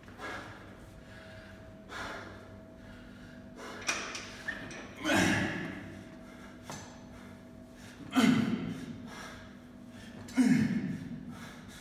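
A man breathing hard and forcefully, a loud exhale with each barbell press overhead. The exhales come every two to three seconds, and the last three are the loudest.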